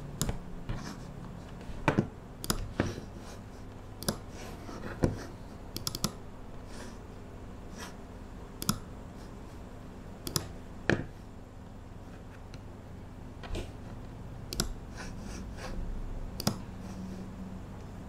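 Irregular, sparse clicks and taps of a computer keyboard and mouse, a few at a time with pauses between, some in quick pairs. A steady low hum runs under them.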